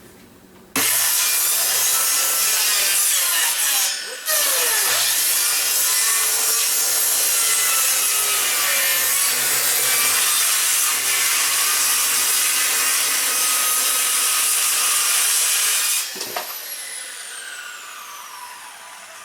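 Circular saw starting up about a second in and cutting through a wooden board, with a short break about four seconds in before the cut goes on steadily. Near the end the saw is let off and the blade winds down with a falling whine.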